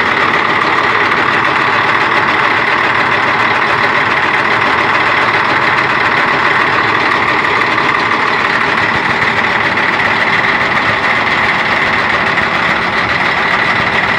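Crane engine idling steadily, heard close up at the front of the engine beside the running fan belt, alternator and water pump. The water pump has just been rebuilt with new bearings and a mechanical seal and is being run for a leak test.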